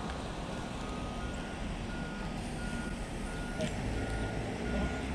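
A vehicle's reversing alarm beeping steadily at one high pitch, about three beeps every two seconds, over the low running of an engine that grows more distinct near the end.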